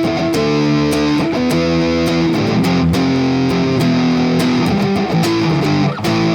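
Guitar played through a distortion effect, strumming a chord intro with the chords changing every second or so.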